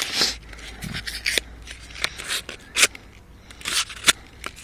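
A small multi-tool knife blade cutting paper: irregular crisp snips and paper rustles.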